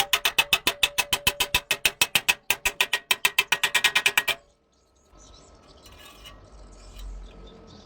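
Rapid, even clicking, about seven clicks a second with a faint metallic ring, which stops abruptly about four seconds in, followed by a faint low hiss.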